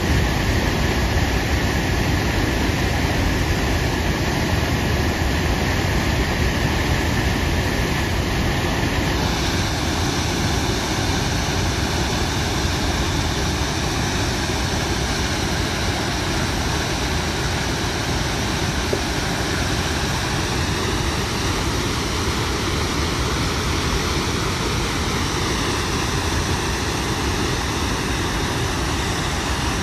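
The Upper Falls of Tahquamenon Falls, a wide river waterfall pouring over a ledge: a steady, unbroken rush of falling water with a heavy low rumble.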